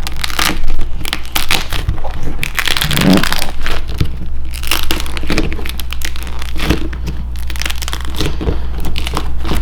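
A dried, nail-polish-coated clay watermelon being crushed by hand, giving a dense run of crackling and crunching that keeps going throughout.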